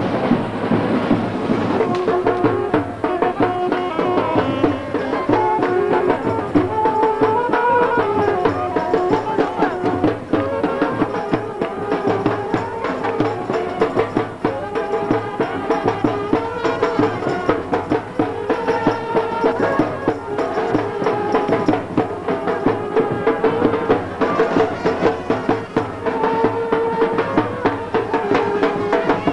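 Music: a melody over steady, dense drumming.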